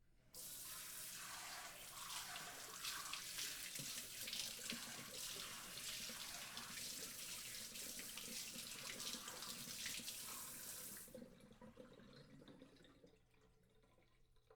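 Water sprayer spraying a steady hissing jet of water. It starts suddenly and cuts off about eleven seconds in, followed by a couple of seconds of fainter trickling and dripping that fades away.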